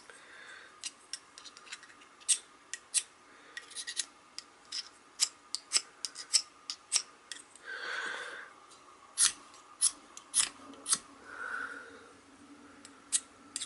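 Steel striker scraping along a UST SparkForce ferrocerium rod in quick, irregular short strokes, with a couple of longer rasps about eight and eleven seconds in. The strokes are scraping the protective coating off the new rod so that it will spark.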